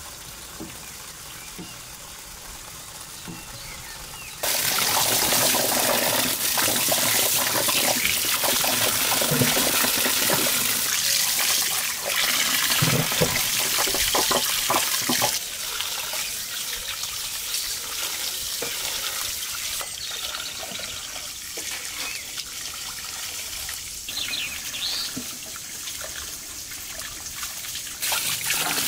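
Tap water running into a metal basin of vegetables, splashing as hands rub and rinse eggplants and cucumbers under the stream. It starts suddenly about four seconds in and drops to a softer splashing about halfway through.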